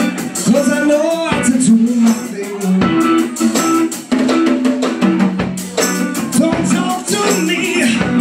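Live band playing a rock song: electric guitar and drums with a regular beat, and a man singing into the microphone.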